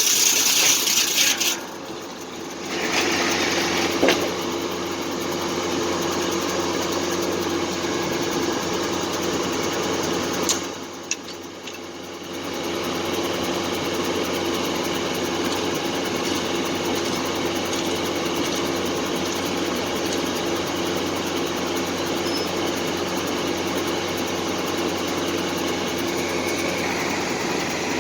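Foley Belsaw circular sawmill running steadily with a constant hum. It is loudest and hissiest in the first second and a half, and the sound dips briefly twice, near two seconds and near eleven seconds.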